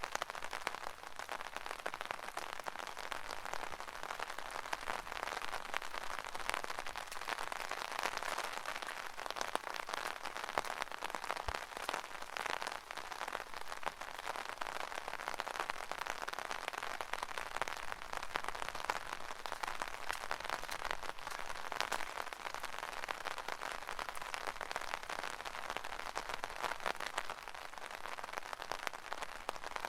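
Steady rain falling on an umbrella: a dense, even spatter of small drop impacts that runs on without change.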